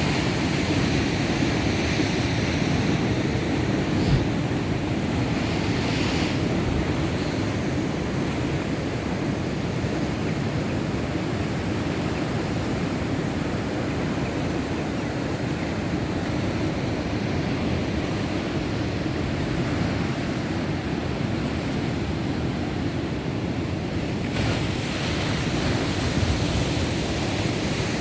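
Heavy surf on a rough sea: waves breaking and rushing in a continuous wash, swelling in surges about six seconds in and again near the end, with wind noise on the microphone.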